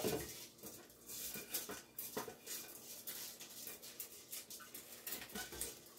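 Washed rice being poured into a stainless steel pot: faint, scattered small taps and clicks.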